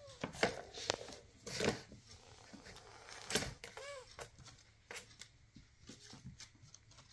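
Light plastic clicks, knocks and rattles from a three-tier ball-track cat toy as a kitten paws at it, its paws patting the hardwood floor. There is a short squeak about four seconds in.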